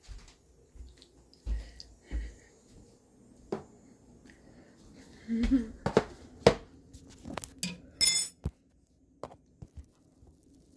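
Scattered knocks, clicks and clatter of a plastic food-storage container and spoon being handled and set down on a kitchen counter, with a few dull handling thumps. The clatter is busiest in the second half, with a brief high rustle near the end.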